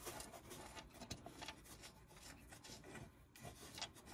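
Faint rubbing and small metallic clicks as fingers turn a loose bolt out of the Ford Bronco's hood hinge area by hand.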